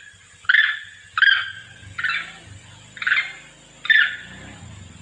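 Long-tailed macaque giving a string of five short, sharp calls about a second apart, a monkey calling to others of its group.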